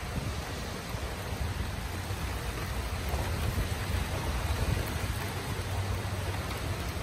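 Steady rushing noise of wind and rain as a storm front passes, with a low rumble of wind on the microphone.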